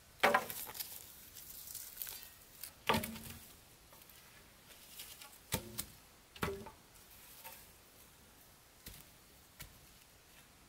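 Sawn wooden planks knocking together as they are lifted from a pile and laid on the ground: a few separate wooden clunks with a short ring, the loudest right at the start and just before three seconds in, then fainter taps.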